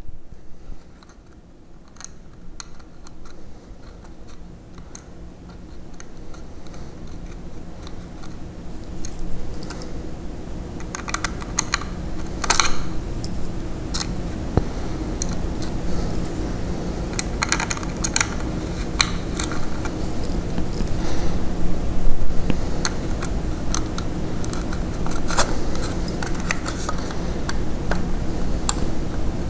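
Small sharp clicks and taps of a small screwdriver and tiny screws as screws are driven into a hard drive's metal mounting bracket, scattered irregularly and coming thicker about a third of the way in. Under them runs a steady low hum that grows gradually louder.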